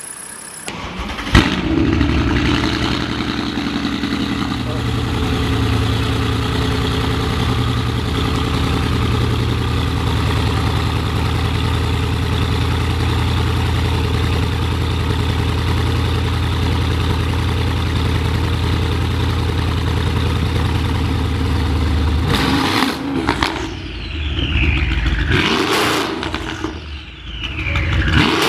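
Mercedes-Benz CLS 63 AMG's twin-turbo V8 starting with a sharp flare about a second in, then idling steadily. Near the end it is revved several times, its pitch falling away after each rev.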